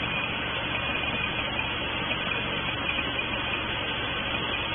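Steady machine noise with a low hum, unchanging in level, with no distinct clicks or changes.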